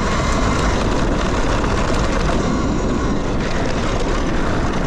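Wind rushing over the microphone and riding noise from a Talaria Sting electric dirt bike on the move: a loud, steady rush with a low rumble, and a faint steady high tone in the first second or two.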